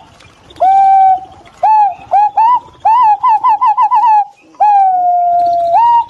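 Green pigeons calling in clear, whistled notes: a long level note, a few short upswept notes, a quick run of about seven rising-and-falling notes, then a long note that slowly falls and turns up at the end.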